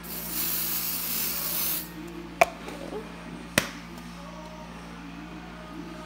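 Aerosol nail-dryer spray hissing in one burst of almost two seconds, followed by two sharp clicks about a second apart.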